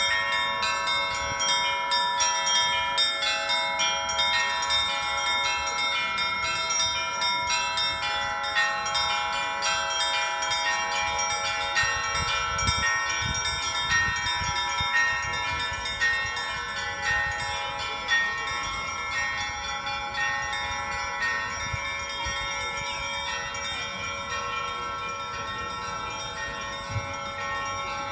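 Russian-style bell ringing (kolokolny zvon): several bells struck by a bell ringer in a repeating rhythmic pattern, their tones overlapping in one continuous ring. Strikes come about once or twice a second, a little softer toward the end.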